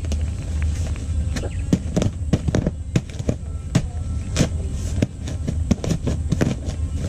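Dry sugarcane mulch crackling and rustling as it is handled and spread as bedding: a quick, irregular run of sharp crackles over a steady low rumble.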